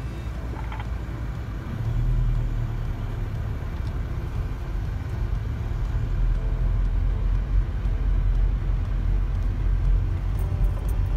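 Car driving slowly, heard from inside the cabin: a steady low engine and road rumble that grows a little louder about two seconds in.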